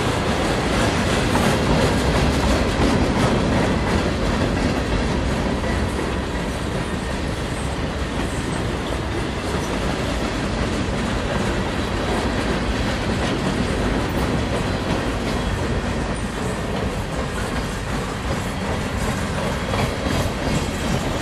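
Freight train's boxcars and tank cars rolling past: steel wheels on rail in a steady rumble with clickety-clack, a little louder in the first few seconds.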